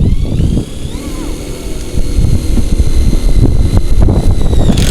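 Cordless drill driving screws: the motor whine rises as it spins up, holds a steady pitch for about four seconds and stops near the end, over a heavy low rumble.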